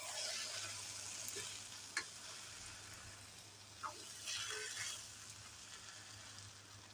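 A pot of coconut rice cooking in coconut milk with a soft, steady sizzle, stirred, with a couple of light knocks about two and four seconds in.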